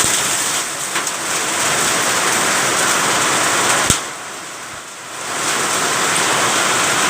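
Heavy rain falling in a steady loud rush, easing briefly near the middle and building back up, with two sharp clicks, one at the start and one about four seconds in.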